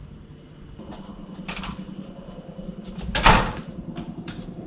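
Front entrance door of a neighbouring house banging hard about three seconds in, after a lighter knock about a second and a half in.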